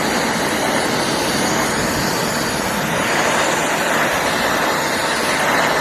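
Butane torch flame burning with a steady, even hiss while heating aluminum and a filler rod, a flame too weak to melt the aluminum.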